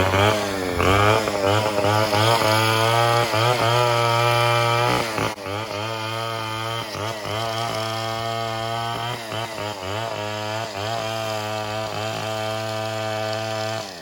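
Two-stroke chainsaw running at high revs, its engine speed dipping and recovering again and again, while it is put to a coconut palm trunk. It gets somewhat quieter about five seconds in and stops just before the end.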